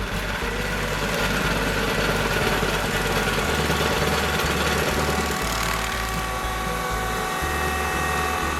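Compact tractor running a PTO-driven three-point stump grinder, the grinder's disc spinning and chewing into a stump with a steady mechanical din.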